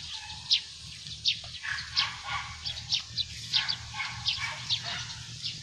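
Short, high animal calls, each sliding downward, repeating about two or three times a second.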